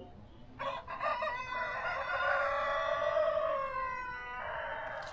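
Brahma rooster crowing: one long crow of about four seconds that starts about half a second in and drops lower in pitch toward its end. A brief sharp click follows near the end.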